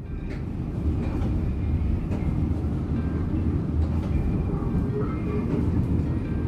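1944 PCC streetcar running along its track, heard from inside the car: a steady low rumble with faint whining tones above it and a few light clicks.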